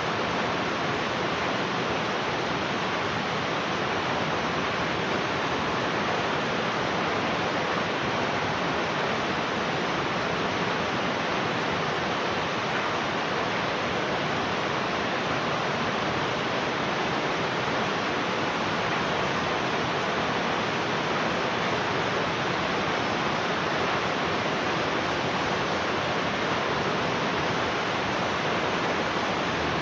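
Heavy rain falling in a steady, even hiss, with no single drops, thunder or other sounds standing out.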